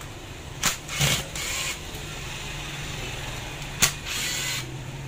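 A power screwdriver briefly spins twice, each short whirring burst coming after a sharp click, as screws are driven out of a Makita HR2470 rotary hammer's gear housing. A low steady hum runs underneath.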